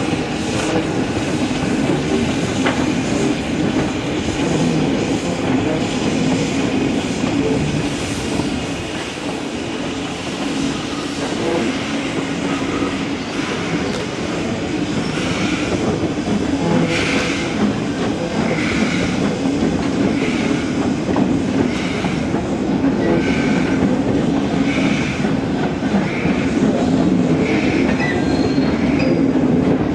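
SNCF 140 C 231, a 2-8-0 Consolidation steam locomotive, working a train of vintage coaches as it pulls away, with continuous running noise from the engine and the rolling coaches. In the second half a regular beat comes about once a second.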